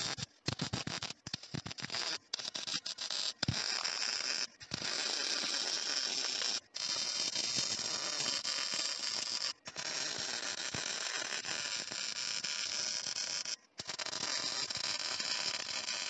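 Wire-feed welder's arc crackling as it welds a round steel tube to a flat steel mounting plate. It starts as a string of short tack-weld bursts, then settles into four longer runs of a few seconds each, broken by brief pauses.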